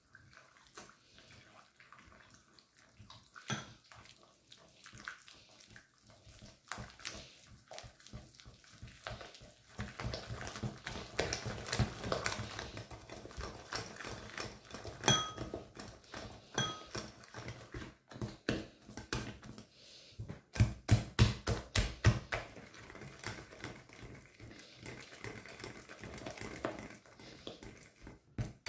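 Wire whisk beating stiff pancake batter in a glass bowl, with milk being worked in: a continuous run of quick wet strokes that grows louder about a third of the way in and is fastest and loudest a little past two thirds. Twice in the middle the whisk clinks against the glass with a short ring.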